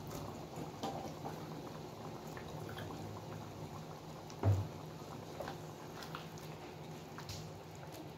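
Coconut-milk curry broth simmering in a wok while shredded chayote is stirred in with a silicone spatula. There is a steady low bubbling with scattered light scrapes and clicks, and one louder thump about four and a half seconds in.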